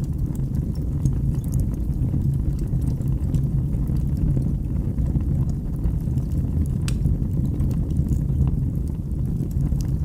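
Wood fire burning in a fireplace: a steady low rumble of flames with scattered small crackles and pops, one sharper pop about seven seconds in.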